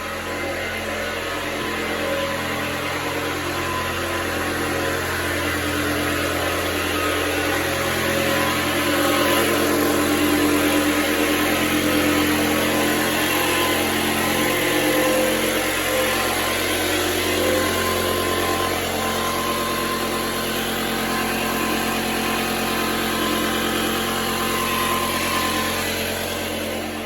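Air compressor running steadily, pumping a fire-sprinkler system full of air for a pressure test. A loud, even machine drone that swells slightly partway through.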